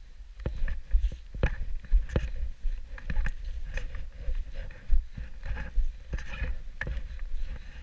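Snowboard chattering and scraping over rutted, tracked-up snow: irregular knocks and scrapes, with a steady low wind rumble on the camera's microphone.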